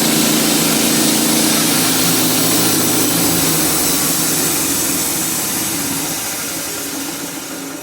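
Norwood portable bandsaw mill running, its engine steady with a high hiss over it, easing off near the end.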